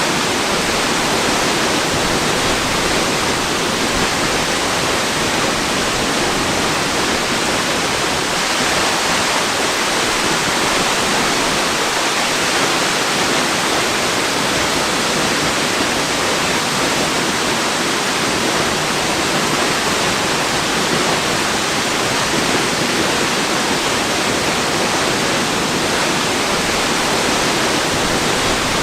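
Waterfall rushing: a loud, steady, unbroken hiss of falling water with no change in level.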